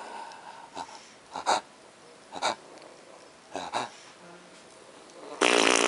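A toddler's breathing through a tracheostomy tube: short, noisy puffs of air about once a second, then one much louder, longer rasping burst near the end.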